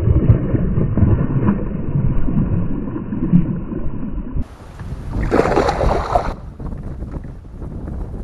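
A hooked bass thrashing and splashing at the water's surface beside the boat, muffled and dull for the first few seconds. Brighter splashing follows. Near the end, steady wind on the microphone.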